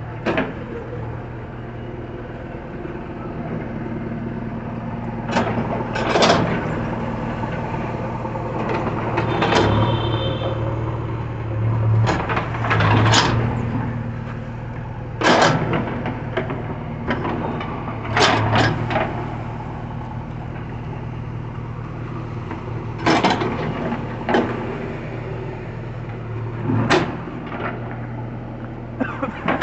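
JCB 3DX backhoe loader's diesel engine running steadily, its note swelling a few times as it works under load, with about a dozen sharp knocks spread throughout as the bucket and arm work.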